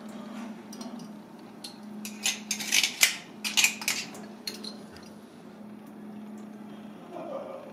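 Thin knife scraping and clicking against a blue maxima clam's shell as it is shucked, with a quick run of sharp clicks about two to four seconds in.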